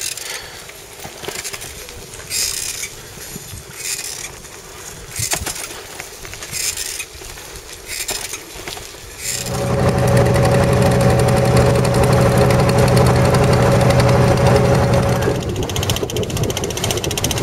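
Fairly quiet outdoor sound with short, irregular hissing bursts every second or two. About nine seconds in, a boat engine starts up loud and runs steadily, easing off a little near the end.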